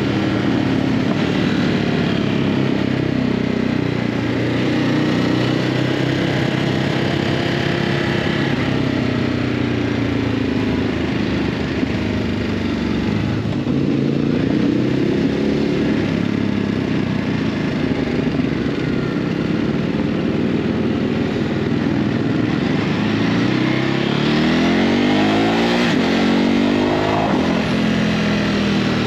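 Ducati Hypermotard 950's 937 cc L-twin on its stock exhaust, heard while riding. The engine note rises and falls with the throttle, with a stronger rev climb a little before the end.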